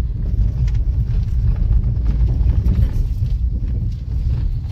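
Steady low rumble of outdoor street noise, with a few faint knocks over it.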